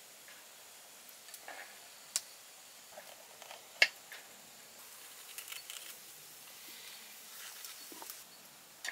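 Kitchen knife cutting a red bell pepper on a wooden cutting board: scattered crisp slices and knocks of the blade against the board, the loudest a sharp knock a little under four seconds in.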